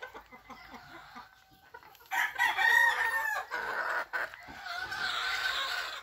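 A rooster crows about two seconds in, one long pitched call lasting about a second and a half, and chickens call again near the end.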